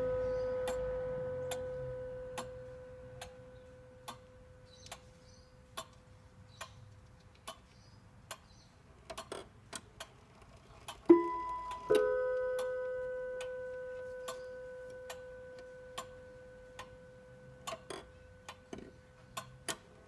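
Junghans grandmother clock ticking steadily, a little more than once a second, while a previous strike on its gong rings out and fades. Near the middle a few quick mechanism clicks lead into two gong strikes less than a second apart, which ring on and slowly die away.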